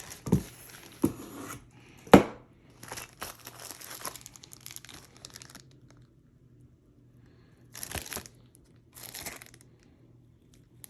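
Packaging crinkling and rustling as a shotgun barrel is pulled from its box, with a few sharp knocks in the first couple of seconds, the loudest about two seconds in. The rustling stops for a while, then comes back in two short bursts near the end.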